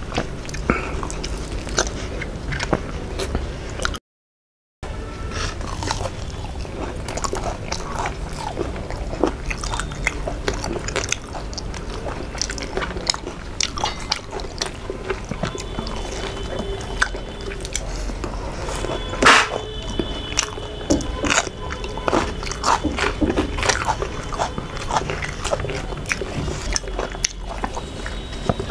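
Close-miked wet chewing and lip-smacking from two people eating rice and fried fish by hand, with many small sharp mouth clicks and smacks. The sound drops out completely for under a second about four seconds in.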